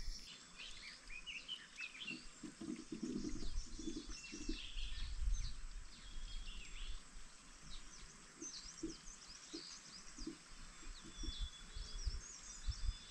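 Small birds chirping: many short, quick calls overlapping through the whole stretch, with a low rumble underneath.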